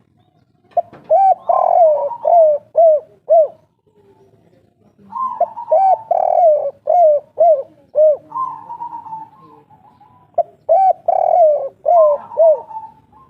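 Spotted dove (derkuku) of the 'kuk 3' type cooing: three song phrases, each an opening coo followed by a run of short, separate 'kuk' notes, loud and close.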